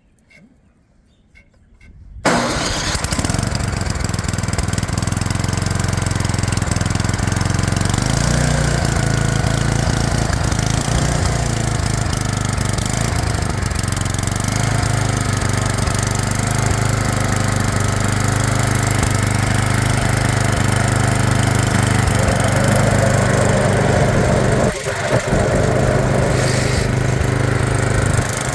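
2003 Murray Blizzard 27-inch self-propelled snowblower's engine starting about two seconds in, catching at once and running steadily, with a brief dip in level near the end.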